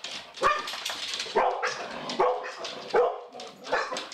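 Pit bulls barking in a rapid, uneven string, about seven barks. This is guard-dog alarm barking at a strange, human-like figure.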